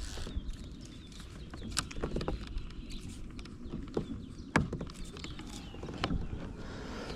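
Scattered sharp knocks and clicks, the loudest about four and a half seconds in, over a steady low rumble.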